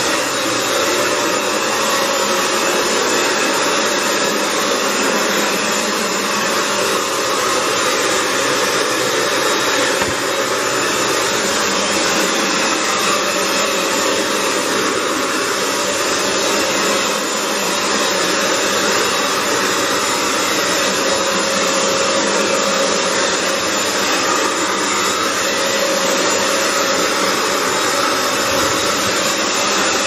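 Hoover FloorMate Edge hard-floor wet cleaner running steadily with its suction motor on, pushed over wet tile as it scrubs and sucks up the cleaning solution.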